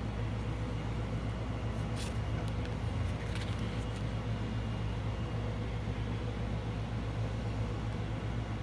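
Steady low hum of an air conditioner running, with a few faint light clicks about two to four seconds in.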